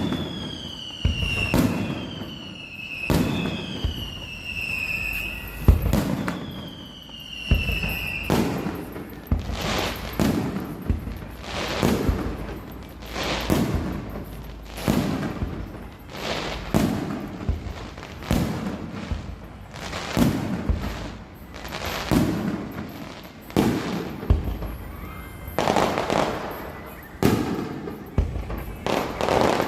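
Fireworks going off. In the first eight seconds four whistling firecrackers each give a falling whistle that ends in a crack; after that comes a long string of bangs, about one a second, each with an echoing tail.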